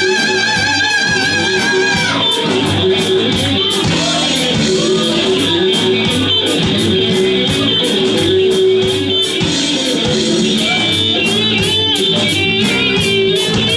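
Live rock band playing hard rock: electric guitar, electric bass and a drum kit with steady cymbal strikes. A high held note with vibrato rings for the first couple of seconds, then a guitar-led line carries on over the rhythm section.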